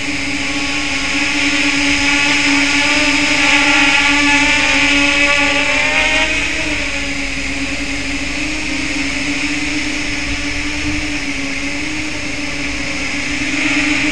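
Eachine EX2 mini quadcopter's brushless motors and propellers buzzing in flight, with a steady hum whose pitch wavers as the drone hovers and manoeuvres. It grows louder a few seconds in and again near the end.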